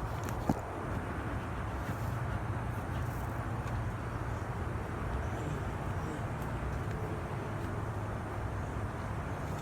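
Steady low rumble of vehicle noise, with a single sharp click about half a second in.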